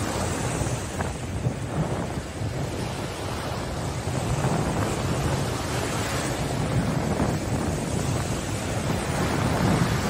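Small waves breaking and washing up onto a sandy beach: a steady rush of surf, slightly louder from about four seconds in.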